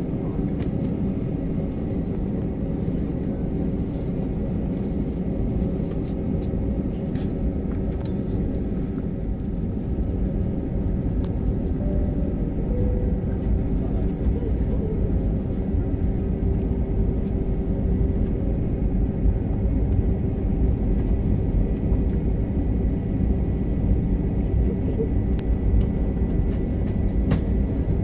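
Steady low rumble inside an Airbus A320's cabin, from the jet engines and airframe, growing a little louder about ten seconds in.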